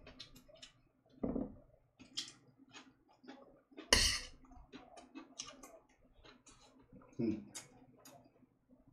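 A person eating: a steady run of small clicks and smacks from chewing and from utensils against dishes. Dull thumps come about a second in and about seven seconds in, and a sharper, louder clack about four seconds in.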